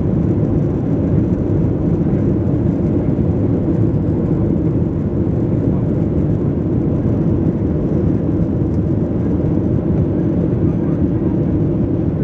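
Airliner's jet engines and airflow heard from inside the passenger cabin during takeoff: a loud, steady, low noise that does not change.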